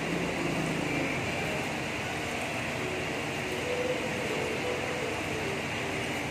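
Steady fan-like hum of workshop background noise.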